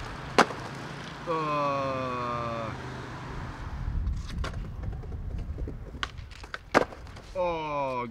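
Skateboard hitting a granite ledge with a sharp clack, then a long shout falling in pitch. Scattered board clacks follow, a hard slam about seven seconds in, and a second falling shout near the end.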